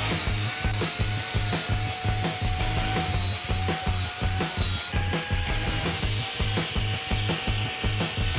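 Electric angle grinder fitted with a wood-carving cutter running and cutting into zelkova wood: a steady motor whine over a rough, uneven grinding. The pitch shifts slightly about five seconds in.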